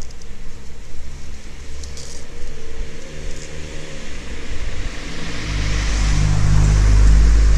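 A motor vehicle's engine running, a low hum that grows much louder about five and a half seconds in, with a rising hiss.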